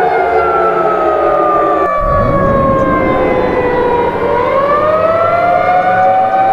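Civil defense siren wailing: its pitch slowly falls for about four seconds, then climbs again. About two seconds in, a second siren starts winding up from a low growl.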